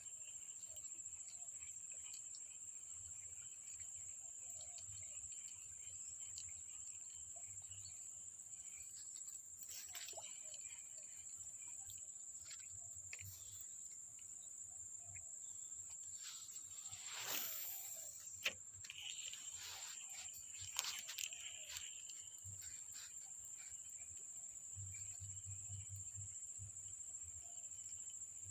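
Insects chirring in a steady, high, even drone, faint overall. A few small knocks and rustles come a little past the middle, among them one sharp click.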